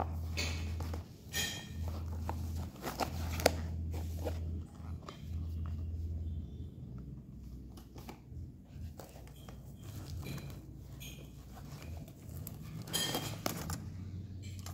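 Handling noise of a zippered soft drone case and its plastic-bagged accessories: rustling, scraping and small knocks, thickest near the start and again near the end as the drone is lifted from its foam. A low hum comes and goes during the first six seconds.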